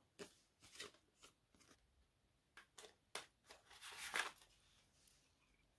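Faint handling of a plastic CD jewel case and its paper inserts: scattered light clicks and taps, then a short paper rustle about four seconds in as the booklet is pulled from the case.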